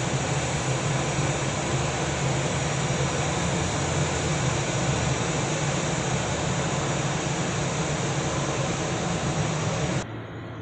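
Airbus A320 jet engines at taxi power: a steady rumble with a hiss over it. Near the end the sound drops abruptly to a much quieter hum.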